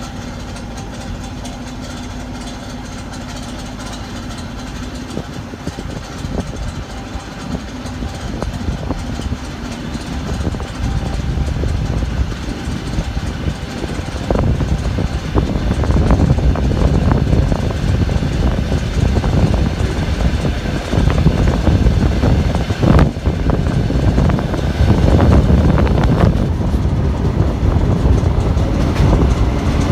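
ET2 electric multiple unit gathering speed. A steady hum at first gives way to a rumble of wheels on the rails that grows louder, with clatter over rail joints from about halfway.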